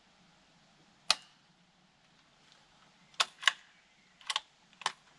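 Sako Quad .22 LR bolt-action rifle failing to fire: a single sharp click of the firing pin falling without a shot about a second in, then a quick run of metallic clicks as the bolt is worked open and closed. It is a misfire or a round that did not feed properly; the shooter isn't sure which.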